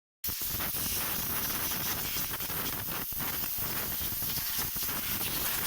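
Compressed-air blow gun hissing steadily as it blows dust off a car engine's valve cover. It starts abruptly just after a cut.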